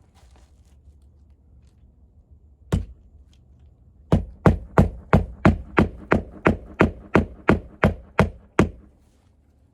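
Hammer driving a nail into asphalt roof shingles: one knock, then a steady run of about fourteen strikes at about three a second.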